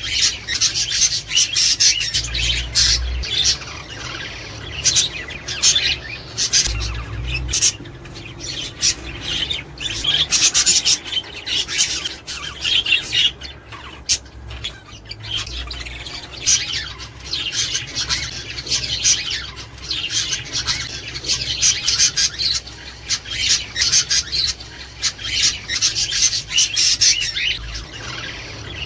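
A flock of budgerigars chattering: a steady, dense run of quick chirps and squawks.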